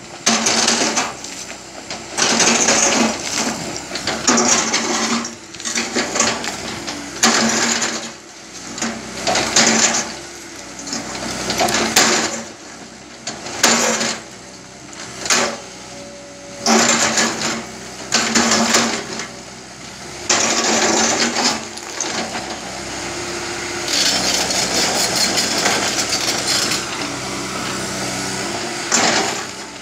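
JCB tracked excavator's engine running under load as its bucket digs through broken rock, with repeated loud surges of rock scraping and clattering every second or two. Near the end the noise turns steadier and continuous.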